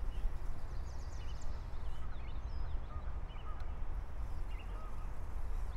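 Wind buffeting the microphone with a steady low rumble, while small birds chirp and call repeatedly in the background.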